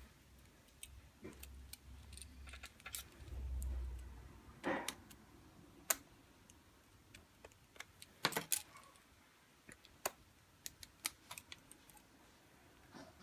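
Scattered light clicks and taps of small hand tools working on tiny toy car wheels and their axle, with a low handling rumble about three to four seconds in.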